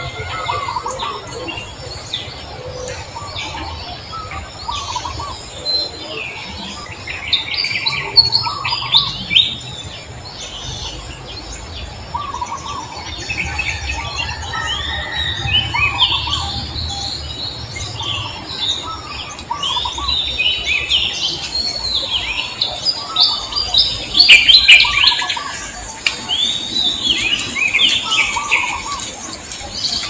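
Birds chirping in many short rising-and-falling calls, busiest and loudest in bursts about a third of the way in and again near the end, over a faint steady high-pitched tone.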